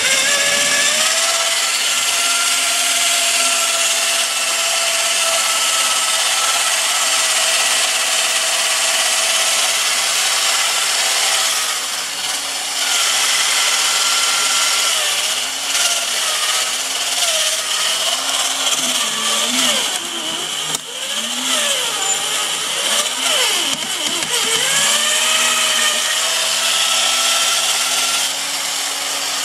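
Robot 2001 toy robot's electric gear motors running with a steady grinding whine. The pitch wavers up and down through the second half, and the sound briefly drops about twelve seconds in and again near twenty-one seconds.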